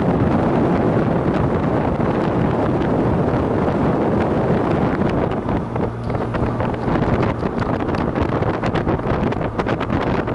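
Wind buffeting the microphone of a REWACO RF-1 LT turbo trike under way, with its engine running underneath. The rush dips briefly about halfway through, then comes back in gusty buffets.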